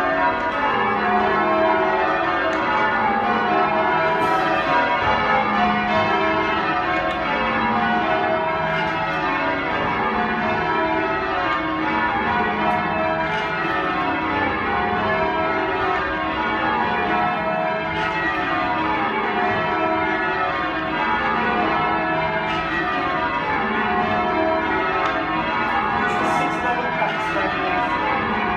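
Change ringing on a ring of ten church bells with a 17 cwt tenor in E: a continuous stream of bell strokes, each row running down in pitch from the highest bell to the lowest, one row after another.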